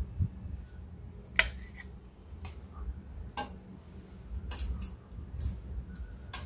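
Metal ladle clinking against the pot and plate while scooping boiled fish pieces out of a pot of water: several separate sharp clinks, the loudest about a second and a half in.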